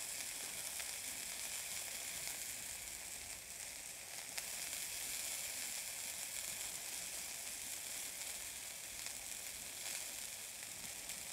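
Chicken pieces sautéing in a small amount of hot oil in a stainless steel pan, sizzling evenly and steadily, with a few faint ticks.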